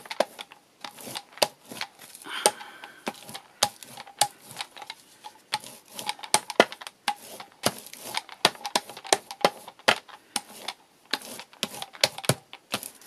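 A hand brayer loaded with gesso rolling lightly back and forth over textured painted card, giving a run of irregular tacky clicks and crackles, a few each second.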